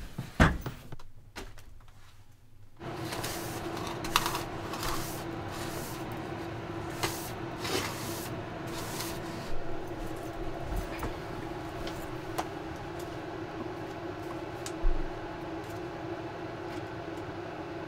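Small knocks, wipes and scrapes of cleaning up in a camper: a cabinet wiped with a paper towel, then the floor swept with a hand brush and dustpan. About three seconds in, a steady hum starts and runs under the scattered clicks.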